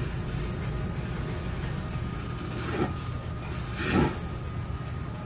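Steady low rumble of a yakiniku restaurant's extraction and ventilation, with two short clatters of utensils about halfway through and again about a second later, the second louder.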